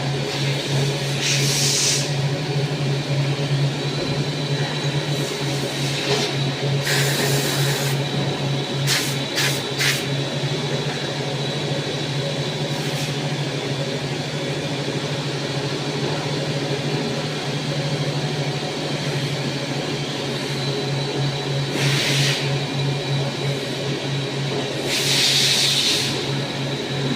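CNC machine running with a steady hum and a faint high whine, broken now and then by short hissing bursts, including three quick ones together.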